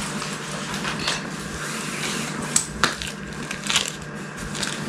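Packaging being handled: scattered crinkles and light clicks, over a steady low hum.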